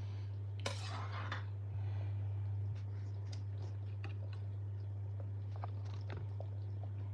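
Small clicks and knocks of kitchen utensils and pots being handled, with a brief scraping rustle about a second in, over a steady low hum.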